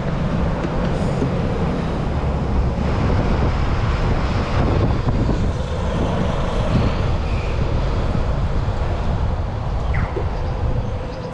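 Steady road traffic heard from a moving bicycle, with a heavy low rush of wind over the microphone.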